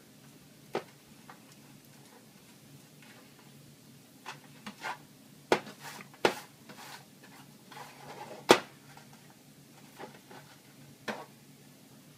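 Hands stuffing a chopped cilantro mix into whole red snappers in a metal roasting pan: scattered taps and knocks of hands and fish against the pan, the sharpest about two-thirds of the way through, over a faint steady hum.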